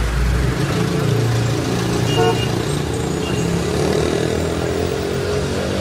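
Busy city street traffic: cars and a bus passing, with steady engine and tyre noise. A deep rumble fades out in the first half-second, and a brief high tone sounds about two seconds in.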